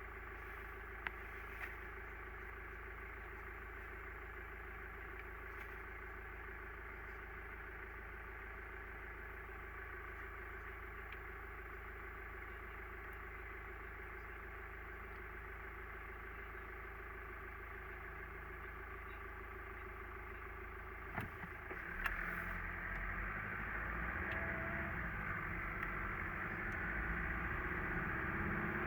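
Mazda CX-30 XD's 1.8-litre four-cylinder diesel running, a steady hum with a steady droning tone held over it, the pipe-like whistle that the owner reports as an unresolved abnormal noise. About 21 seconds in there are a couple of clicks, and the sound grows louder with an uneven low rumble.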